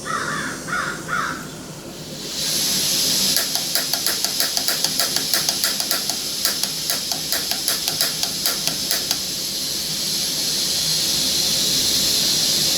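Gas hissing steadily from a canister camp stove burner, turned on about two seconds in. Over it come rapid clicks from the stove's piezo igniter, about four a second for some six seconds, without the burner lighting: the igniter has carbon buildup and is not sparking.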